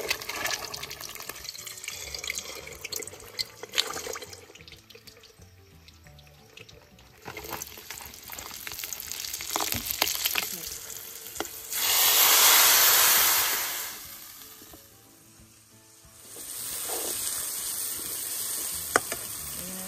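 Spices and masala frying in hot oil in an aluminium kadhai. About twelve seconds in the oil sizzles loudly for about two seconds, then dies down. From about sixteen seconds a steady frying sizzle runs on while the ladle stirs; scattered small clinks and taps come earlier.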